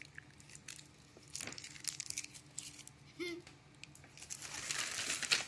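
Crinkling and rustling of plastic candy packaging, in scattered crackles that grow denser and louder near the end.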